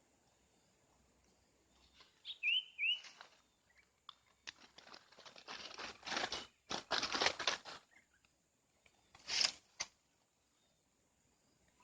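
Two short whistled bird chirps, then several seconds of loud rustling and crinkling with a gap in the middle, and one more short rustle near the end.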